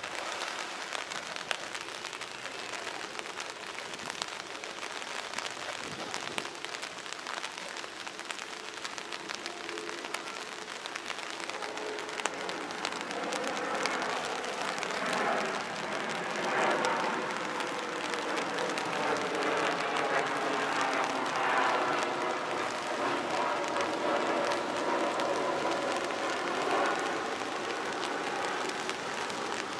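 Outdoor city ambience: a steady hiss of traffic and open-air noise, growing a little louder in the second half.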